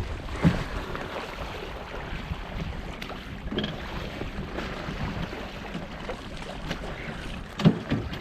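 Water rushing along the hull of a small sailing yacht moving under sail, with wind on the microphone and a few short knocks.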